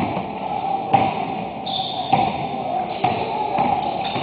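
Basketball bouncing on a hardwood gym floor, a sharp thud about once a second with echo from the hall, and short high sneaker squeaks on the court.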